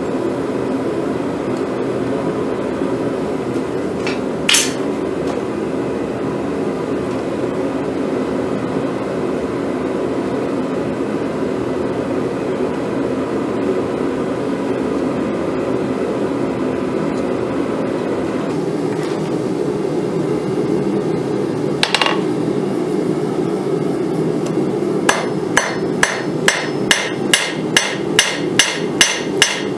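Hand hammer striking red-hot twisted steel on an anvil in a regular run of ringing blows, about two a second, starting a little before the end. Under it runs the steady roar of a gas forge. Earlier, while the bar is twisted in a vise, two single metallic clinks stand out over the roar.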